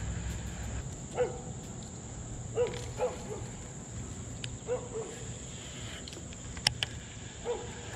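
Short pitched animal calls, one every second or two, over a low rumble, with a few sharp clicks near the end.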